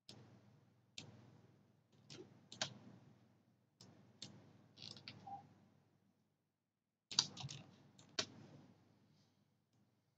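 Quiet, separate clicks of a computer mouse and keyboard, roughly one every second, with a quick run of several clicks about seven seconds in.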